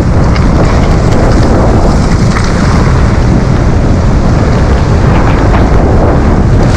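Strong wind buffeting the microphone over rough storm surf, a loud, steady rumbling roar with waves breaking on the stony shore.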